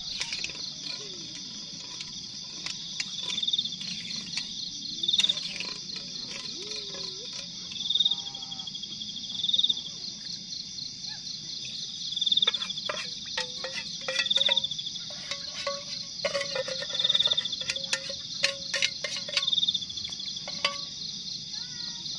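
A dense chorus of night insects keeps up a steady, shrill, rapidly pulsing trill, while a louder insect call swells and fades about every two seconds. In the second half, a metal utensil clinks and scrapes in a metal camping pot.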